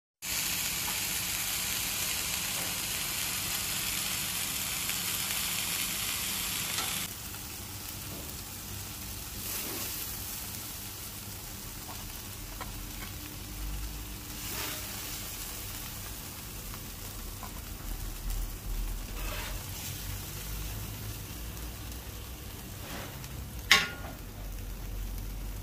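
Burger patties topped with melted cheese and bacon sizzling hard on a hot flat-top griddle, a loud steady hiss that drops away suddenly about seven seconds in. After that a quieter background with occasional scrapes and taps of a metal spatula, and one sharp tap near the end.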